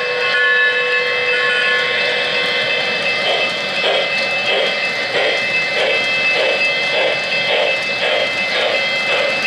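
Lionel O-gauge NYC 0-8-0 switcher's RailSounds steam effects: a few short whistle toots in the first two seconds, then steady chuffing at about one and a half beats a second, over a steady high tone.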